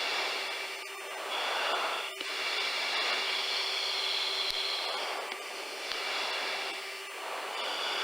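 Steady rushing cockpit noise of an F/A-18 chase jet in flight, heard through the aircrew intercom, with a steady high whine on top. It swells and fades every couple of seconds.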